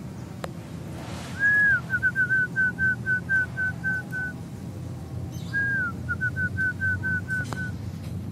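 A clear whistled call, given twice: each time a longer held note, then a quick run of about ten short notes at the same pitch, about four a second.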